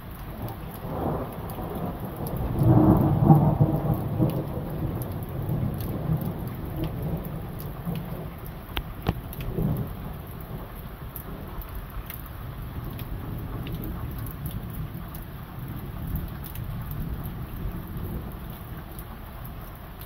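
Thunder rumbling in about a second in, loudest around three seconds and rolling away over several seconds, with a smaller rumble near the middle, over steady heavy rain with drops ticking close by.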